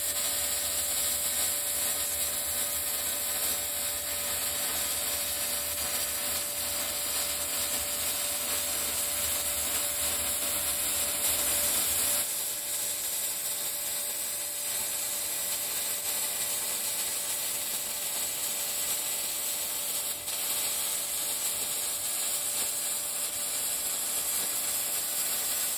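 MIG welding arc crackling steadily as a bead is run along an outside corner joint of quarter-inch steel plate, fed with .030 wire at about 19.7 volts and 283 inches per minute of wire.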